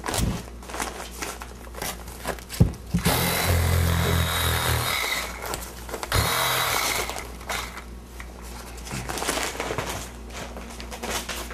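Plastic vapour barrier and fibreglass batt insulation crinkling and tearing as they are pulled out of a stud wall, with a longer, louder ripping stretch about three seconds in and another about six seconds in.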